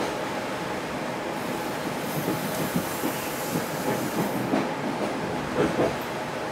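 Chu-Kuang express passenger carriage rolling along the track, heard from inside the carriage: a steady rumble with irregular wheel knocks and clacks over the rail joints, and a higher hiss in the middle.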